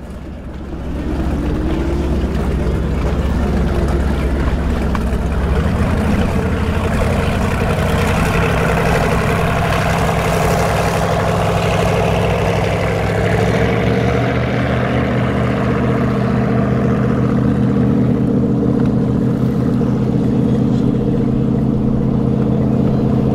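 Motorboat engines running, swelling louder over the first second or two and then holding a steady drone whose note shifts a couple of times.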